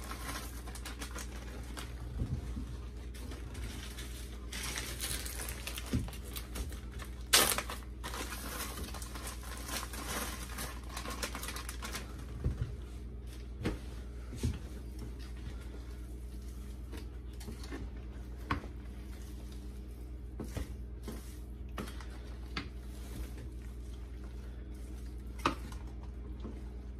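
Plastic zip-top bags of diced ham crinkling and rustling as the ham is shaken out into a large stainless steel pot of noodles, with scattered light clicks and knocks of hands and a wooden spoon against the pot. A steady low hum runs underneath.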